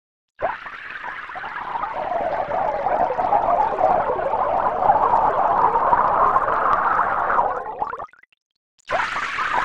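Computer-simulated sound of a stream of water pouring into a glass tank: a dense, bubbly splashing that builds in loudness, synthesized from modelled bubble oscillations with full acoustic transfer. It stops about eight seconds in, and after a short pause the same pour starts again near the end, rendered with proxy transfer.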